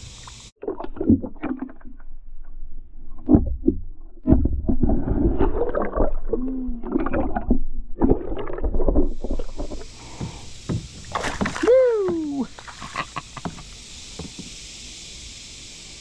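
Action-camera microphone dipped under the water beside a kayak: muffled underwater sloshing, gurgling and knocks, with the open-air hiss cutting out about half a second in and returning about nine seconds in. A short falling tone is heard about twelve seconds in.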